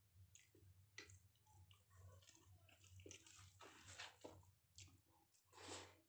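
Faint close-up eating sounds: a person chewing mouthfuls of rice and curry with small smacks, and fingers squishing rice on a plate, over a low hum. A louder breathy noise comes about five and a half seconds in.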